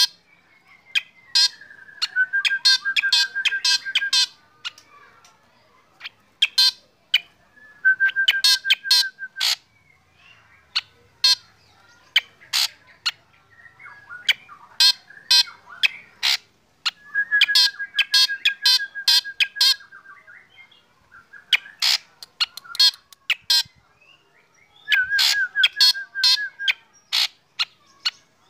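Black drongo singing: bursts of sharp, high notes and four longer phrases, each a held trill.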